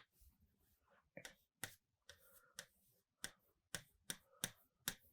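Faint, sharp clicks of a stylus tapping on a digital writing board, about ten of them, coming roughly two a second in the second half.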